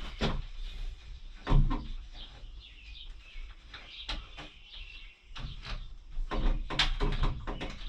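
Scattered clicks, knocks and rubbing from working a road bike tire off its wheel rim by hand.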